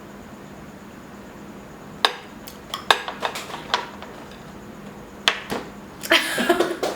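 Utensils clinking and knocking against dishware: a handful of sharp, irregular strikes starting about two seconds in, a couple more later, and a busier clatter near the end.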